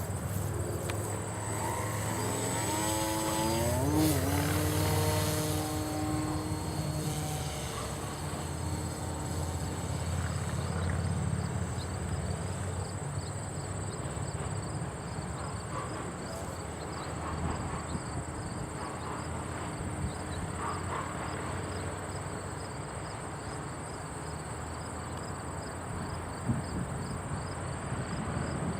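RC flying wing's motor and propeller spinning up with a rising whine at launch, loudest about four seconds in, then holding its pitch and fading away as the plane flies off. Crickets chirp steadily throughout.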